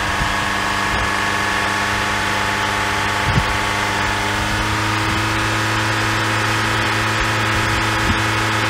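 Vehicle engine idling steadily, its pitch creeping up slightly from about halfway, with a light knock about three seconds in.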